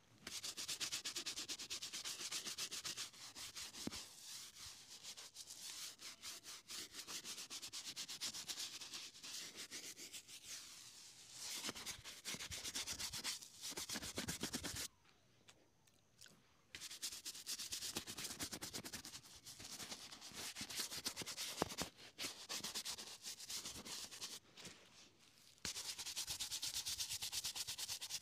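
Small bristle shoe brush scrubbing a leather shoe in rapid back-and-forth strokes. The brushing stops for about two seconds near the middle, then starts again, with a brief slackening near the end.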